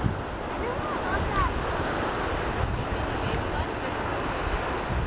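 Ocean surf washing on the beach, with wind buffeting the microphone as a steady low rumble. A few faint high gliding calls sound briefly about a second in.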